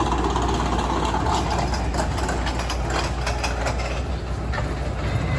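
A motor running with a steady low hum, with a run of light clicks and knocks through the middle.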